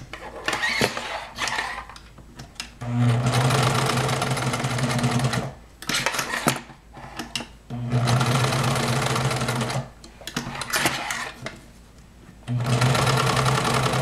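Domestic sewing machine stitching through collar webbing in runs of two to three seconds, stopping between runs with small clicks in the pauses. It is sewing an hourglass reinforcement stitch.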